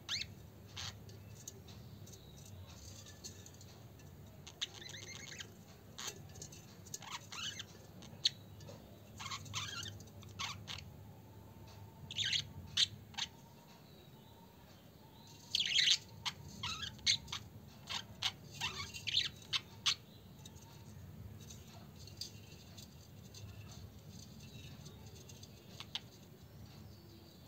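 Budgerigars chirping in short, high calls that come in scattered clusters for most of the first twenty seconds. After that it is mostly quiet apart from a single chirp near the end.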